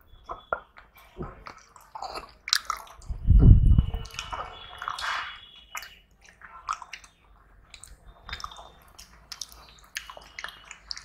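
Close-up eating sounds: chewing and biting, with wet squishing as rice and curry are mixed by hand and fingers clicking and scraping on steel plates. A loud low thump comes about three and a half seconds in.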